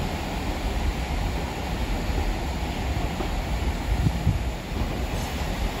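London Underground S Stock train pulling out of the platform and running away down the track, a steady low rumble, with wind on the microphone.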